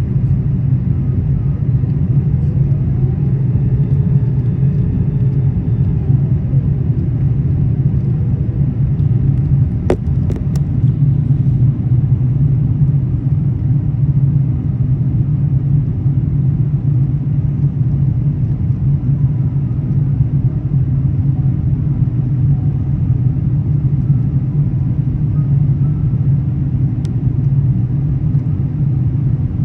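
Steady low rumble of Airbus A380 jet noise. A faint whine rises and then falls a few seconds in, and there is a single sharp click about ten seconds in.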